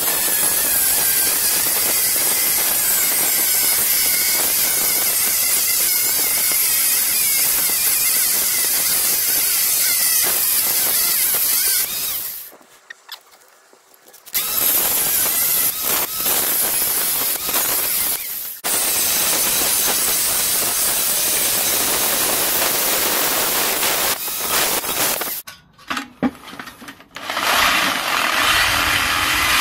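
Angle grinder with a cut-off disc cutting through an engine sump, a loud steady whine. It stops for about two seconds near the middle, then runs and cuts again. After another short stop near the end, an electric jigsaw starts up and saws into the sump.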